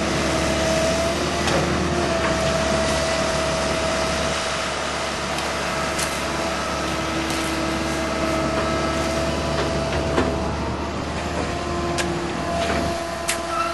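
Tracked excavator running steadily while moving backfill dirt, its engine humming with a held whine that shifts in pitch now and then. A few sharp knocks stand out against the hum.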